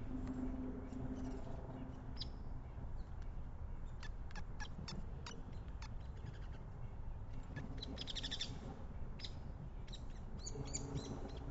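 Backyard songbirds chirping at a feeder: scattered short, high calls, with a quick rapid trill about eight seconds in. A low steady hum and background rumble sit underneath.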